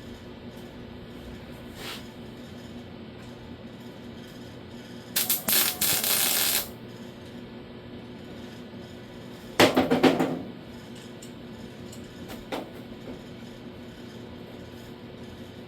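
Two short bursts of crackling welding on a thin sheet-steel door skin, tack welds stitching the 18-gauge repair panel in place: one about five seconds in lasting around a second and a half, a shorter one near ten seconds. Faint clicks come in between.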